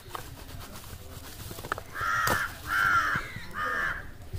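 A bird calling three times, loud calls each about half a second long, in the second half.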